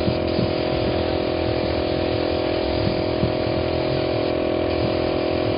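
Air compressor for a paint spray gun running with a steady, unchanging drone, with a few light knocks over it.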